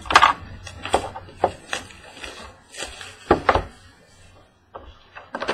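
A trading-card pack being opened and handled by hand: irregular rustles, scrapes and sharp knocks of the wrapper and cards.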